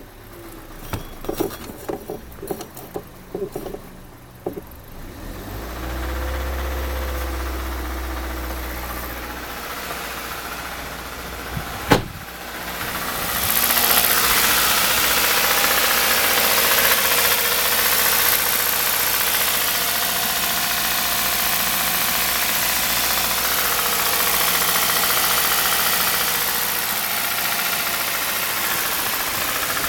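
Kia Rio 1.6 Gamma four-cylinder petrol engine: after a few seconds of small clicks and a sharp click, it starts a little under halfway through and then runs steadily. It runs with the metallic knock that is the fault being shown.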